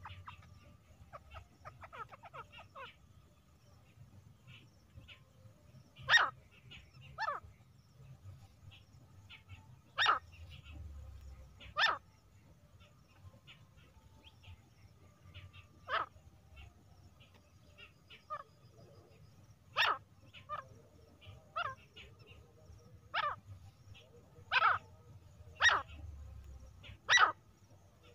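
Female grey francolin (teetar) giving short, sharp single calls at irregular gaps of one to four seconds, with softer chattering notes in the first few seconds.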